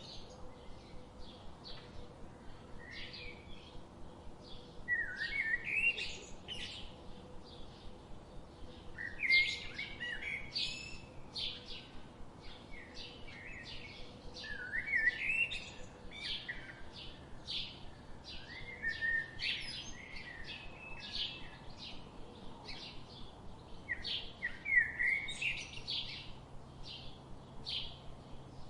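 Songbirds singing: one bird repeats a short, jagged song phrase about every four to five seconds, over a steady patter of quick high chips from other birds.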